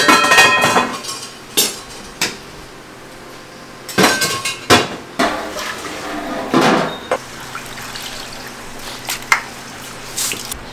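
Metal lids and utensils clanging: a stove lid worked with iron rods, then large aluminium soup-pot lids being lifted and set down and a ladle knocking against the pots. The ringing clangs and scrapes come in several separate clusters.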